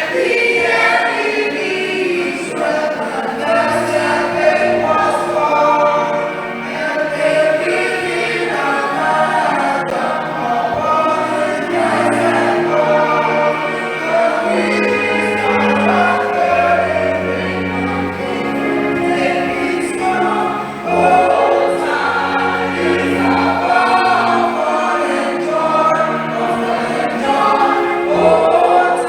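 Church choir singing in harmony with musical accompaniment; held low bass notes come in about halfway through.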